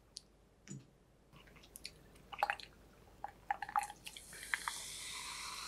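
A few sharp clicks and clinks as a soda can and a glass mug are handled, then from about four seconds in lemon-lime soda (Chilsung Cider) is poured from the can over ice into the glass, with a steady fizzing hiss.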